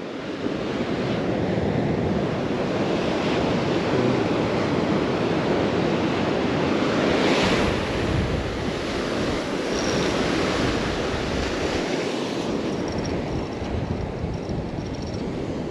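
Gulf surf washing onto the beach with wind buffeting the microphone; the wash swells loudest about seven seconds in.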